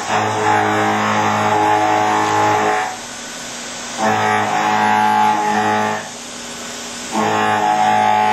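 CNC mill roughing with a two-insert Dapra indexable cutter at about 3,200 rpm: a steady pitched hum with overtones under a hiss from the air blast. It comes in stretches of two to three seconds while the cutter is in the cut, dropping away twice for about a second between passes.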